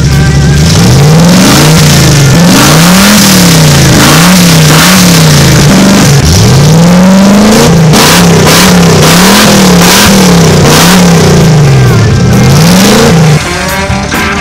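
Built 350 small-block Chevrolet V8 idling for a moment, then revved in a string of quick blips, about one a second, the pitch rising and falling each time, with one longer dip and pull in the middle. It stops shortly before the end, where rock music comes in.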